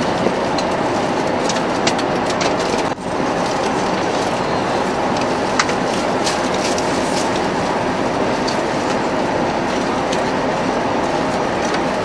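Steady cabin noise of an Airbus A380-800 in flight, an even rush of air and engines, with a few light clicks of foil and cutlery on the meal tray. The noise dips briefly about three seconds in.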